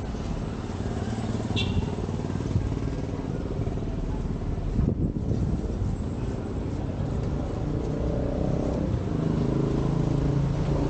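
A motor vehicle engine running, a steady low rumble, with a steadier pitched hum coming in about eight seconds in.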